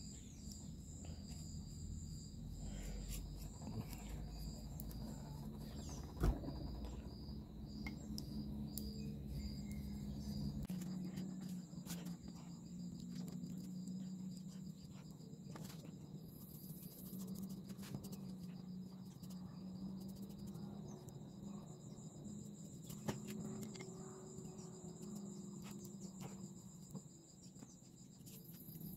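Crickets trilling steadily in high, even tones over a low steady hum, with faint scattered taps and scrapes of a small paintbrush working white enamel onto a wooden board.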